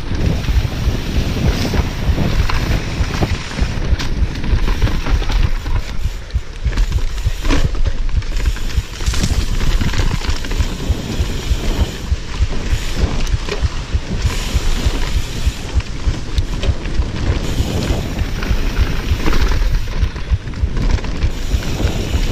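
Wind buffeting the chest-mounted action camera's microphone as a mountain bike rolls fast down rocky dirt singletrack, with a steady rumble of tyres on dirt and frequent knocks and rattles from the bike over rocks and roots.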